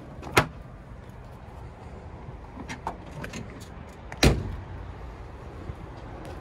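Two sharp knocks from the cab of a 1968 Volkswagen bus, about four seconds apart, the second a heavier, deeper thud like its front cab door being shut, with a few light clicks between.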